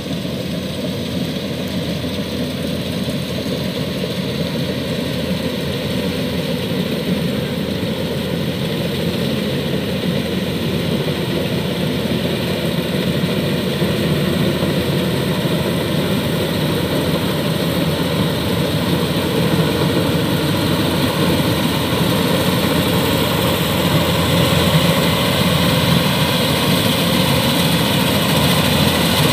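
Kubota DC-105X combine harvester running as it cuts rice, its diesel engine and threshing machinery making a steady drone that grows gradually louder as the machine comes closer.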